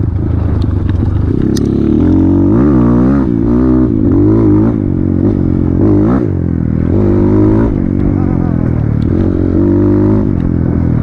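Off-road motorcycle engine revving up and down over and over, the throttle opened and eased off about once a second.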